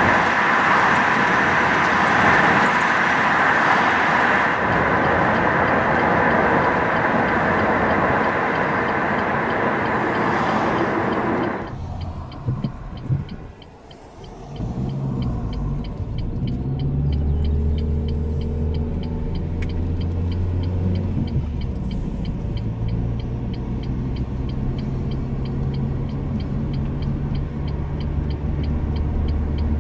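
Loud, even road and wind rush from a car moving at speed. About twelve seconds in it cuts to the lower drone of the car's engine and tyres heard inside the cabin, its pitch rising and falling in places.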